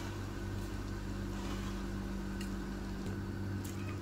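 Steady low hum and soft hiss around a pot of water at a rolling boil on a gas stove. A faint rustle comes about a second and a half in, as salt is poured in, and a light click about two and a half seconds in.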